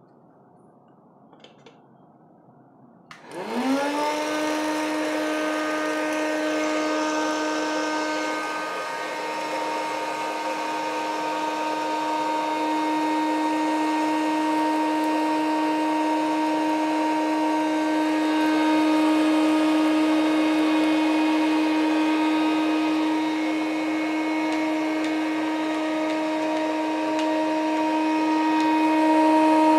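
Electric hot-air popcorn maker switched on about three seconds in: its fan motor spins up quickly to a steady whine over a rush of blowing air while it roasts vadiyalu without oil.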